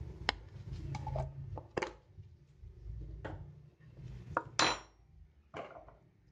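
Kitchen utensils and containers being handled: a series of sharp clicks and clinks, the loudest about three-quarters of the way through with a brief ring after it.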